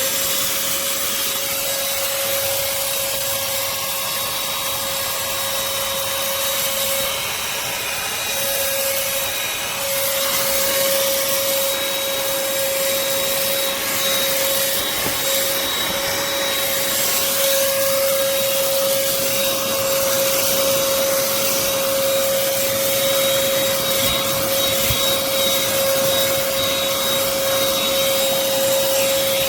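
BLACK+DECKER dustbuster Pivot cordless handheld vacuum running at full speed: a steady motor whine over loud rushing air.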